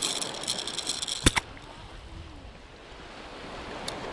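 Small waves breaking and washing up a sandy shore, a steady hiss of surf. During the first second and a half a fast clatter of clicks ends in one sharp knock, the loudest thing heard.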